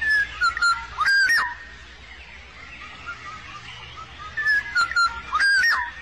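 Black-naped oriole singing: a short phrase of clear fluting whistles with sliding notes, given twice about four seconds apart, with fainter whistles between, over a low steady hum.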